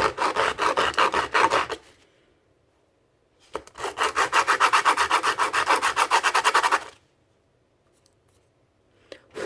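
Sandpaper being rubbed back and forth over the small magazine of a Goatguns SVD model, in two runs of quick scratchy strokes with a short pause between them.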